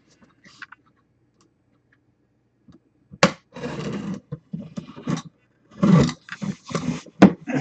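A sealed cardboard box's plastic seal being torn open and the box handled: a string of irregular rustling, tearing and scraping noises starting about three seconds in, after a near-quiet start.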